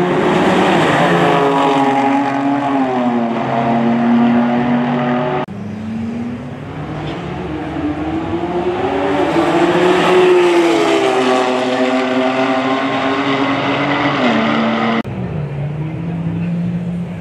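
High-powered performance cars racing at full throttle in a roll race. The engine notes climb and then fall away as the cars pass. The sound changes abruptly twice, about five seconds in and near the end, leaving a quieter engine note at the close.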